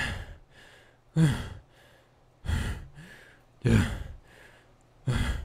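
A voice performing exhausted gasps and groans: five heavy gasping breaths about a second and a quarter apart, each falling in pitch.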